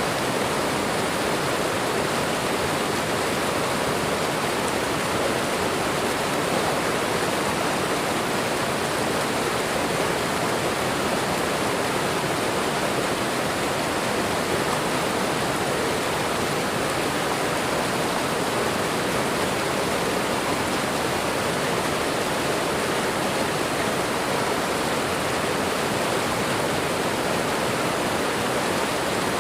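Waterfall with running water, a steady, unbroken rush.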